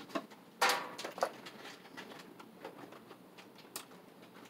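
Hands working electrical wires and cable into a breaker panel: a short rasping scrape about two-thirds of a second in, a second shorter scrape, then scattered small clicks and taps of wire against the metal box.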